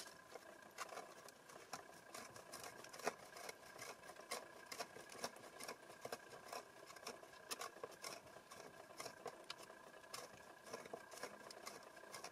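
Serrated knife scraping and shredding the dry, corky flesh of a cracked cap polypore conk: a faint run of quick, irregular scratches. A faint steady tone hums underneath.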